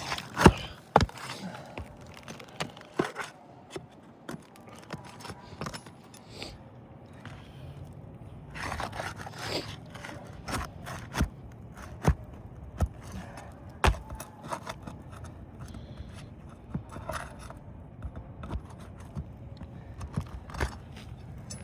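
Roof shingles being pried and scraped loose to free their nails, with scattered sharp clicks and knocks and a few longer scraping passes.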